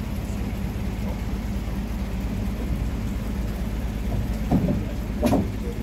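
A boat's engine running with a steady low drone. Two brief louder sounds break in near the end.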